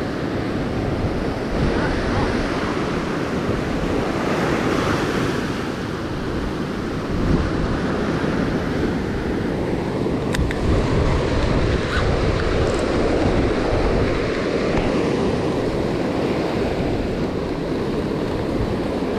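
Ocean surf washing and breaking up onto a sandy beach, with wind buffeting the microphone.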